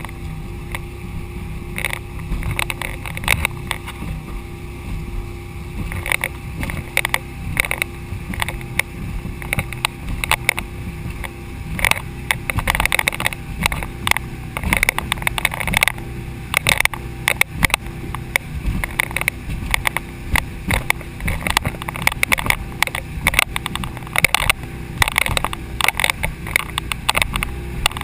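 A boat under way: water rushing and slapping against the hull, with frequent short knocks and splashes and a faint steady hum underneath.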